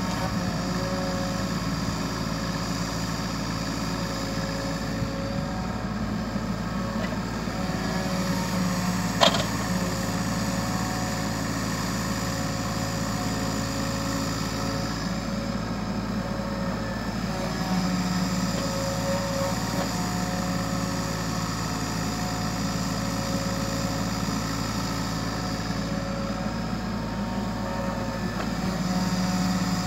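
Kubota U35 mini excavator's diesel engine running steadily while it digs and moves soil, with a single sharp clank about nine seconds in.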